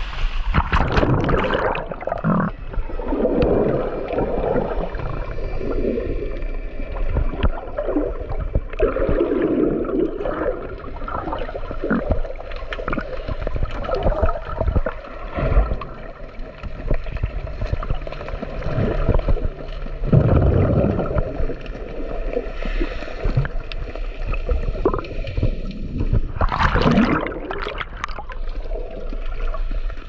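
Sea water sloshing and gurgling around an action camera held just under the surface, heard muffled through the camera's waterproof housing. There are brighter bursts of splashing at the start and again about 27 seconds in.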